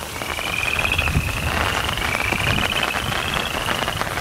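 Small frogs calling from a rain-flooded pond, which the hiker takes for spring peepers: several overlapping trills, each a rapid run of pulses rising slightly in pitch over about a second, over a steady low rush of rain and wind.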